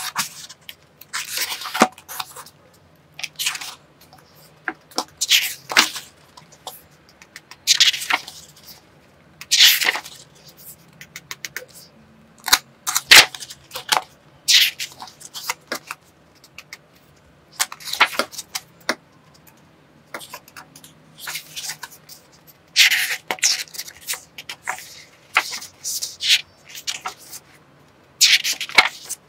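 Paper pages of a book being turned one after another by hand, a crisp rustle every second or two.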